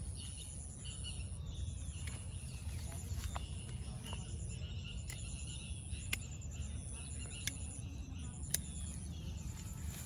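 A constant high insect buzz over a low rumble, with about six sharp snips spread through as side shoots are cut from a shisham sapling.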